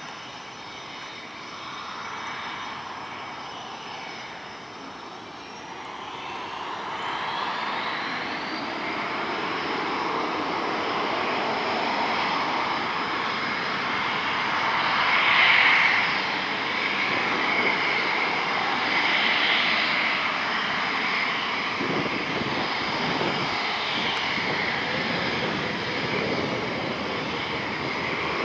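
F/A-18 Hornet's twin jet engines running on the runway, a roar with several high whines. One whine rises in pitch about a quarter of the way in as the engines spool up for takeoff, and the sound grows steadily louder.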